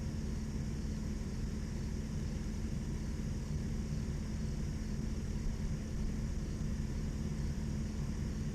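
Steady low mechanical hum and rumble with a constant pitch, unchanging throughout.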